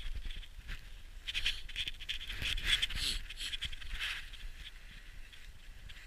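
Footsteps crunching in snow, an uneven run of short crunches.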